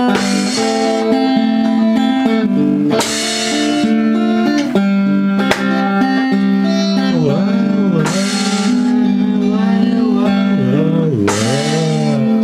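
Acoustic guitar music played live, strummed, with long held notes and some sliding pitch bends.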